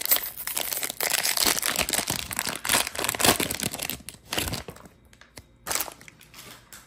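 A baseball card pack's wrapper being torn open by hand, crinkling loudly for about four seconds. Then it goes much quieter, with a couple of brief rustles as the stack of cards comes out.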